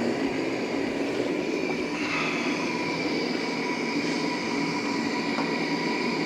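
Propane forge burner running steadily, a constant rushing hiss of gas burning inside the firebrick-closed chamber while it preheats. A faint high tone comes in about two seconds in and holds.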